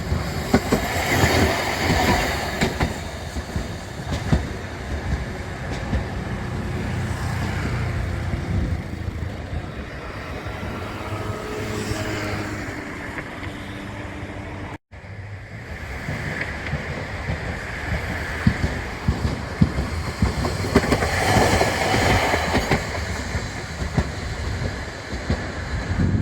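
Rail vehicle wheels clattering over track joints in a rapid series of knocks, over a steady low rumble. The sound cuts out for an instant about halfway through, then picks up again.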